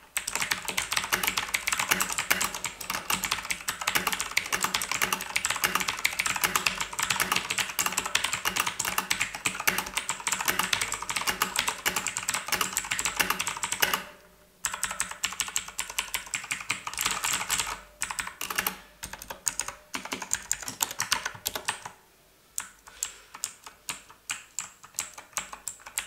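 An E-Dra EK3104 full-size mechanical keyboard with Otemu switches and stock ABS double-shot keycaps being typed on, fast and continuous at first, then after a short pause about halfway, slower separate key presses. The keystrokes sound fairly sharp and solid, and the long stabilized keys are slightly rattly.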